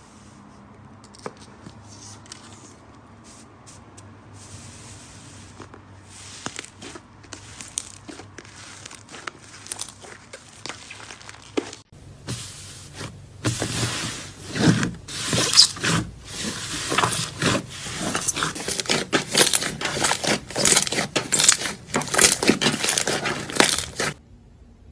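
Slime being squeezed and pressed by hand, making crackling, popping sounds. The sound is faint and sparse at first. About twelve seconds in it turns louder and denser with rapid crackles, then stops shortly before the end.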